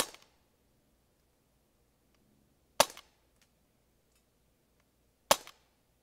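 Three shots from an Umarex HK VP9 CO2 blowback .177 BB pistol, about two and a half seconds apart, each a sharp crack followed closely by a smaller click.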